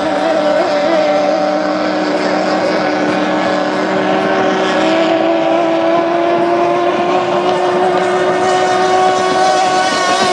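Classic racing motorboat engine running hard at high revs. The pitch wavers up and down in the first second or so, then climbs slowly and holds steady.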